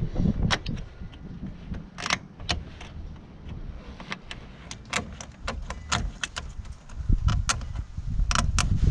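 Irregular sharp clicks and scrapes of hand tools knocking packed corrosion off a corroded car battery terminal, over a low rumble that grows louder near the end.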